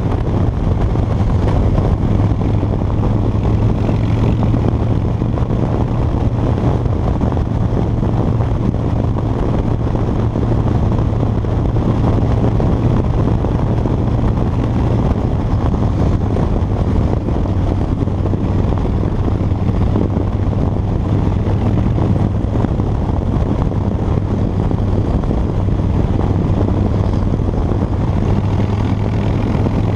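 2013 Harley-Davidson Dyna Fat Bob's V-twin engine running at a steady highway cruise, its note dipping slightly about halfway through. Wind and road noise rush over the microphone throughout.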